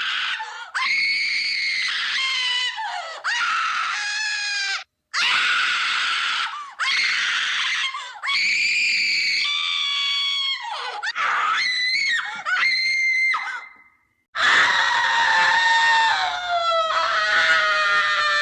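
A rapid series of stock scream sound effects, about a dozen short high-pitched human screams, each cut off abruptly, ending in one long scream whose pitch slowly falls.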